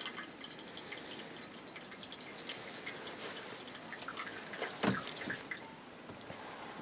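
Tea being poured from a steel thermos into its cup, a faint trickle with small ticks, and one louder knock of metal about five seconds in.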